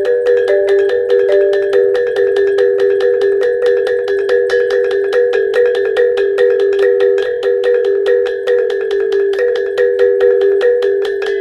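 Traditional T'boli instrumental music: a rapid, even run of struck or plucked notes over steady held tones, with no singing.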